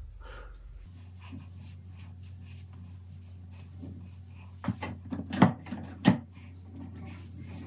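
Soft handling noise of gel-coated hair being worked through with hands and a styling brush over a low steady hum. Three short, sharp knocks or clacks come between about four and a half and six seconds in, the middle one loudest.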